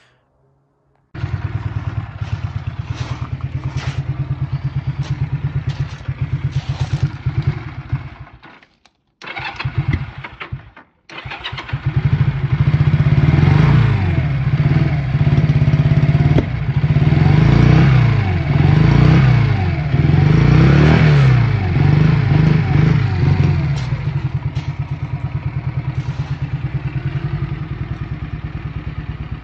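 1982 Honda CM125's small parallel-twin four-stroke engine running on only one cylinder, which the owner puts down to a carburettor problem. It idles at first, cuts out briefly twice, is then revved up and down repeatedly for about ten seconds from about twelve seconds in, and drops back to a steady idle near the end.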